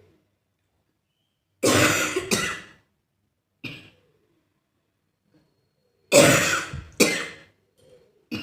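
A person coughing loudly in two fits, each a pair of harsh coughs, about two seconds in and again about six seconds in, with a few short, softer throat sounds after them.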